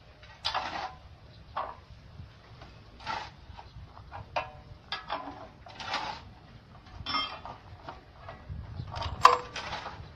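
A heavy steel pipe mould and its crane chains clanking against the pipe machine's shaft and frame as the mould is set into place. About ten irregular metallic knocks, the loudest a little over nine seconds in.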